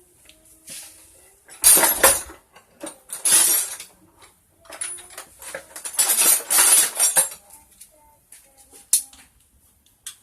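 Metal tools and engine parts clinking and clattering in a few irregular bursts of handling, with a single sharp click near the end, as the motorcycle engine is taken apart.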